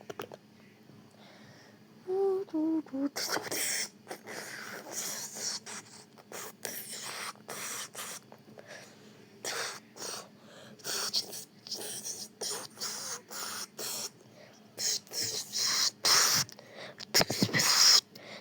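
A person making sound effects with the mouth, beatbox-style: a string of short hissing and puffing bursts, with a brief falling vocal tone about two seconds in.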